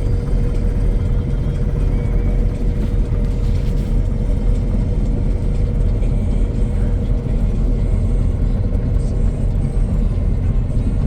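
Engine of a mowing machine running steadily under load: a continuous deep rumble, with a faint steady whine that fades out about a second in.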